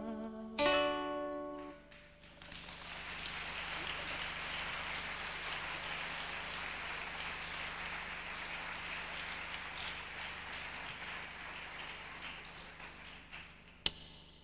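A plucked string instrument's final chord rings out and dies away, then audience applause for about eleven seconds, tailing off near the end. A single sharp knock comes just before the end.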